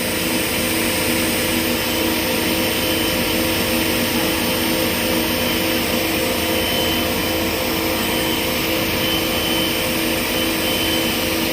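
Side grinding machine for carbide-tipped circular saw blades running steadily, its grinding wheel spinning at low speed with a constant hum.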